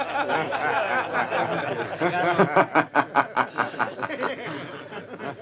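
Men laughing at someone: snickering at first, then about two seconds in a loud burst of rhythmic 'ha-ha-ha' laughter, around five pulses a second, that tails off.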